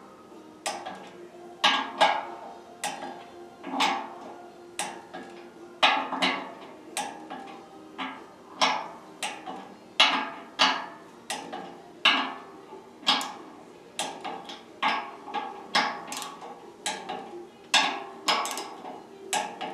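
Click-type torque wrench clicking as it reaches its 80 pound-inch setting on each bearing retainer screw in turn: sharp clicks about once a second.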